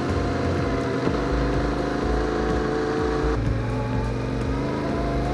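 Yamaha Ténéré 700's parallel-twin engine running steadily as the motorcycle climbs a steep road, with a rushing noise underneath. Its note shifts abruptly about three seconds in.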